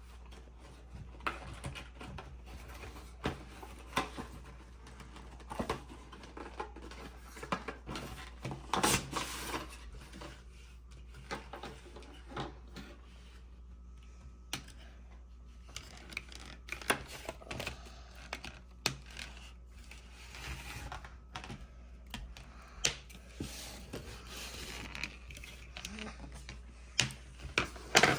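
Irregular clicks, taps and rustles of a toy's packaging being opened by hand, with a busier stretch of handling about nine seconds in.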